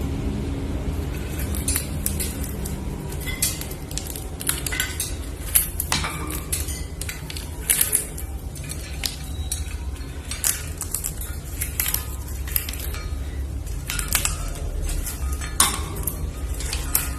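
Irregular sharp clicks and clinks, as of small hard objects knocking together, over a steady low rumble.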